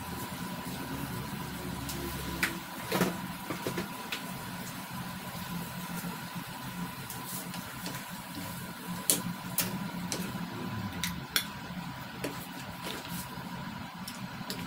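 A wooden spatula stirring and scooping saucy chicken feet in an aluminium wok, with several sharp knocks of the spatula on the pan and bowl, loudest about three seconds in and again about nine to eleven seconds in. A steady hum runs underneath.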